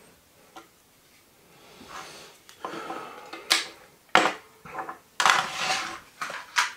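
Small objects handled and set down on a wooden desk: a few sharp clicks and knocks and a brief rustle, starting about two seconds in.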